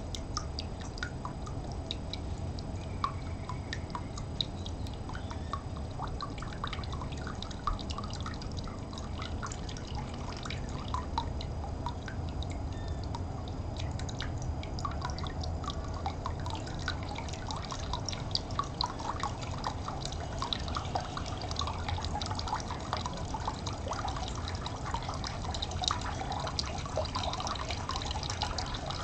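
Water trickling and dripping: a steady stream of small, irregular plinks that grows busier about halfway through, over a steady low rumble.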